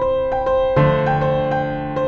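Background music played on a keyboard: a gentle line of evenly repeated notes over held tones, with a fuller, deeper chord coming in just under a second in.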